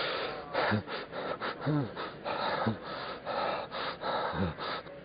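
A man gasping for breath in pain, a series of ragged gasps with a few short, low groans between them.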